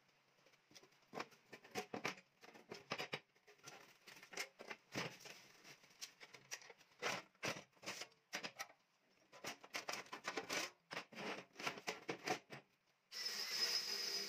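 Irregular knocks and clatter of steel parts being handled, several a second. About a second before the end an angle grinder starts grinding plug welds flush on a sheet-steel panel, a steady noise with a high whine.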